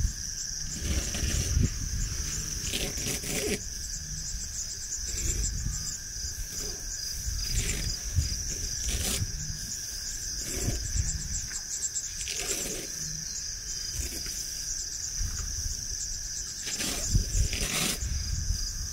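A steady insect chorus holding two high, unchanging pitches, with irregular short rushes of noise and low rumbling every second or two.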